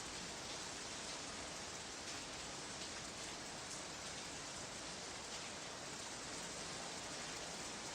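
Steady rain-like hiss with faint scattered crackle, a sound effect played from an old sound-effects record.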